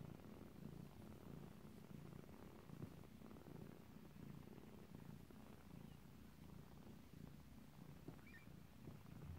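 Faint, steady purring from a mother cat as her kittens nurse, a low pulsing rumble.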